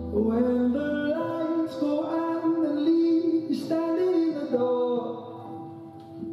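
Music with a singing voice holding slow notes and stepping from one pitch to the next.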